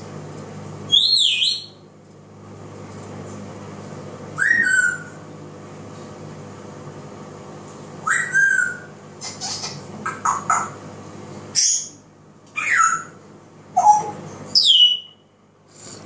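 African grey parrot whistling: about nine short whistled notes spread out with pauses, several sliding down in pitch.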